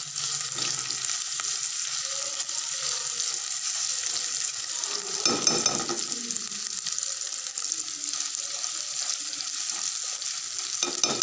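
Boiled chicken and chopped green chillies sizzling in hot oil in a metal pot, stirred with a spatula. There is a steady crackling hiss, with a louder stirring stroke about halfway through.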